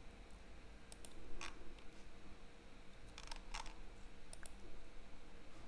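Computer mouse clicks: several faint, separate sharp clicks spread over a few seconds, over a low steady hum.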